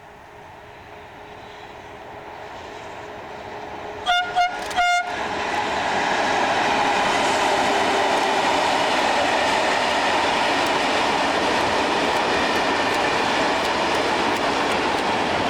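A train approaching and growing louder sounds three short horn toots about four seconds in, then passes close by, running loud and steady with wheels clicking over the rail joints.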